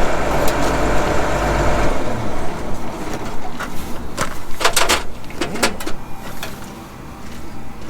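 A steady engine hum that cuts off abruptly about two seconds in, followed by a series of sharp metallic clanks and clicks from tools and parts being handled.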